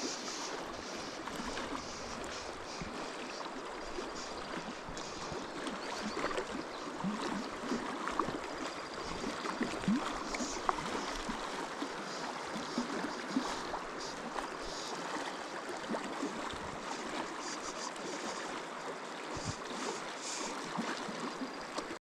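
Steady sound of a river flowing, with small scattered splashes and ticks.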